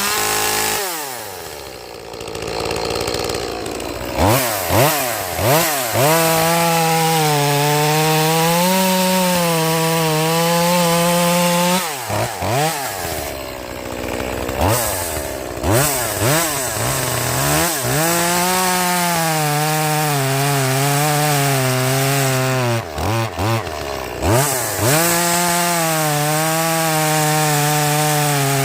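Echo 2511P rear-handle chainsaw's small two-stroke engine in stock form, blipped up and down on the throttle between cuts, then held at full throttle for several seconds at a time while cutting wood, its pitch sagging and wavering a little under load.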